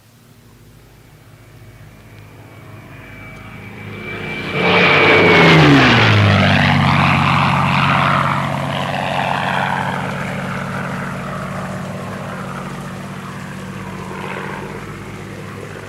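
Propeller-driven aircraft flying low overhead. Its engine grows louder over several seconds and is loudest about five seconds in, where the pitch drops sharply as it passes. It then fades away slowly.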